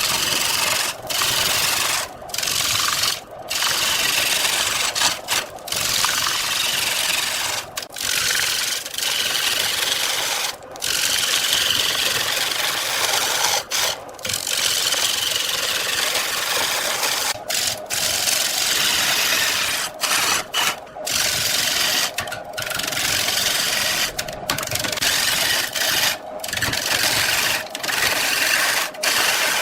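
Turning tool cutting into wood spinning on a lathe: a steady scraping hiss, broken every second or two by short gaps.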